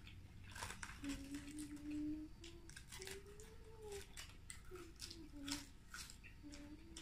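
A person humming softly with closed lips, a wandering tune in short phrases that rise and fall, over scattered small crisp clicks and crackles of eating and lettuce leaves being torn.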